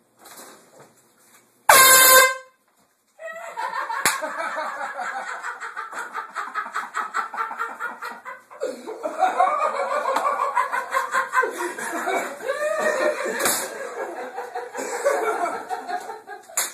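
A handheld air horn blasts once, loud and brassy, for under a second about two seconds in. Then comes a long stretch of loud, continuous laughter.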